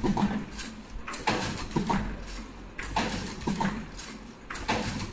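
Richpeace surgical mask production machine running: repeated mechanical clacks, about one or two a second at uneven spacing, over a steady hum.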